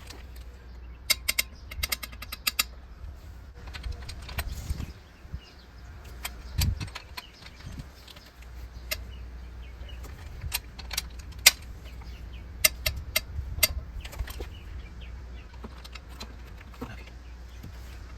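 Ratchet and torque wrench working on cylinder head bolts, tightened in sequence to their first torque step of 58 ft-lb: a quick run of ratchet clicks about a second in, then scattered sharp metallic clicks and clinks of the tools.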